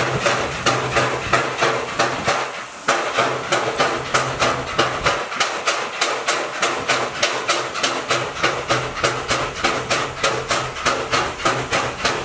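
Steam locomotive standing under steam: an even knocking about three times a second over a steady hum, with a short break about two and a half seconds in.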